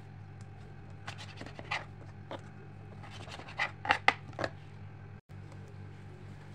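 Kitchen knife cutting vegetables on a plastic cutting board: a series of short scraping cuts, with the loudest few coming in quick succession about four seconds in. A steady low hum runs underneath.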